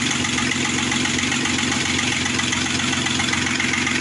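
Opel Omega B's X25XE 2.5-litre V6 idling steadily with a knock heard after the engine was reassembled; its cause is unknown to the owner.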